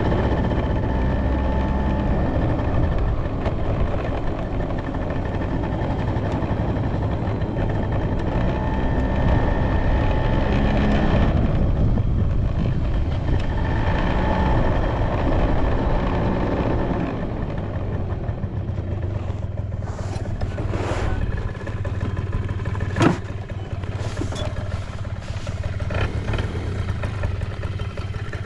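Suzuki Let's II scooter's small two-stroke carbureted engine running with no abnormal noises, picking up briefly around the tenth second and settling lower in the second half. A few sharp clicks come in the later part, one louder about 23 seconds in.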